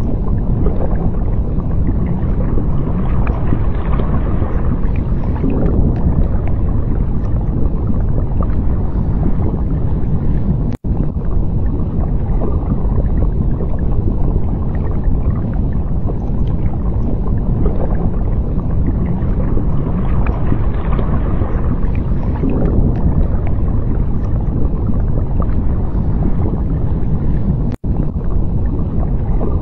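Low, steady rumble and wash of ocean water, swelling gently every few seconds. It cuts out for an instant twice, about eleven seconds in and near the end.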